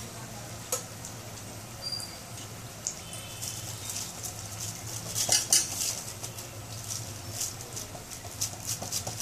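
Rice-flour chekka frying in hot oil in a kadai: irregular sizzling crackles and pops, busiest a little past the middle, over a low steady hum.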